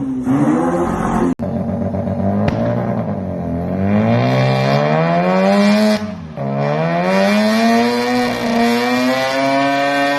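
Car engine revving hard, its pitch climbing, dropping back and climbing again several times, like a car accelerating through the gears.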